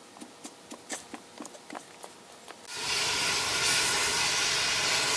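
Faint, irregular clicks from a long ratchet turning on the rear axle hub nut. Then, about two and a half seconds in, a sudden, steady, loud hiss begins as a handheld cutting tool starts cutting through the seized steel hub.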